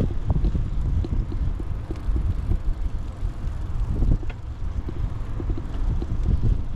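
Wind buffeting the microphone while riding a bicycle: a loud, irregular low rumble over a faint hiss.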